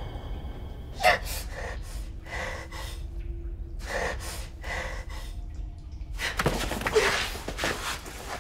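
A person gasping and breathing hard in a string of short, sharp breaths, about one every half second.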